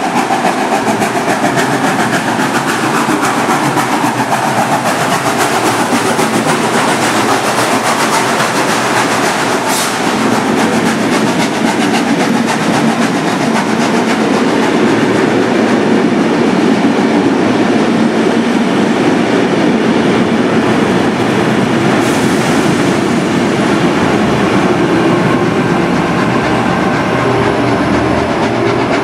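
Steam train on the move: a steady, loud rush of locomotive and wheel noise on the rails, with a rapid clickety-clack.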